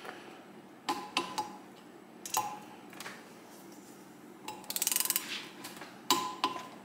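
Metal hand tools clinking against the rear brake disc and its bolts as the disc is fitted to a motorcycle wheel hub. There are several separate sharp clinks, and a short burst of rapid ratchet clicking about five seconds in.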